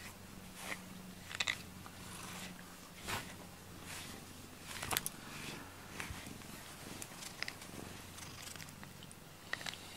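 Domestic cat purring steadily while being brushed, the purr growing fainter after about three seconds, with short scratchy brush strokes through its fur and a few light clicks.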